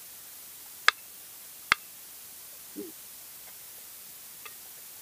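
Spoon and fork clinking against a plate while eating: two sharp clinks about a second apart, then a fainter tick near the end, over a faint steady hiss.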